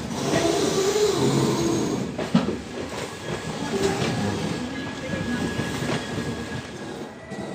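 Running noise of a moving passenger train heard from on board: a steady rumble with the wheels knocking over rail joints now and then.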